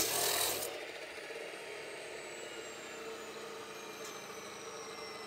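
Abrasive cut-off saw finishing a cut through steel tubing, then the motor released and the disc spinning down, a faint whine slowly falling in pitch.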